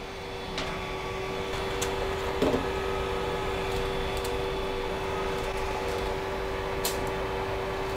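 Steady hum of the Creality CR-10S Pro 3D printer's cooling fans running, with a constant tone that builds over the first second and then holds. A few faint clicks sound over it.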